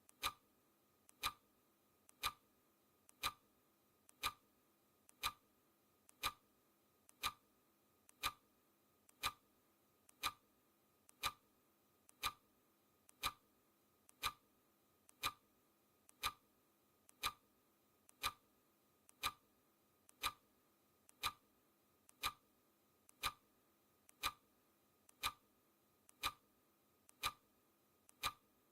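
Clock ticking sound effect marking each second of a countdown: one sharp tick a second, steady and even, each with a fainter click just before it.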